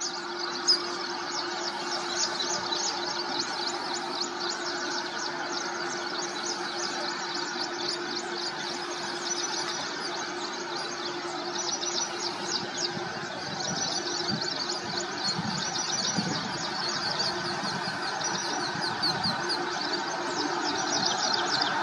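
Indian Railways WAP-4 electric locomotive approaching slowly with a passenger train, a steady hum over a noisy background, with low rumbling growing in the second half. High rapid chirping runs over it.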